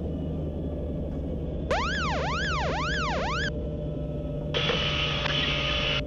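Helicopter cockpit audio over the intercom with a steady low rumble. Just under two seconds in, a warbling alert tone sweeps up and down four times in about two seconds. Near the end there is a burst of radio hiss lasting about a second and a half.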